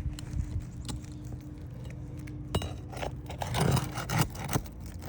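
Scraping and scattered light clinks as asphalt roof shingles are lifted and their nails worked loose, with a few sharper clicks in the second half.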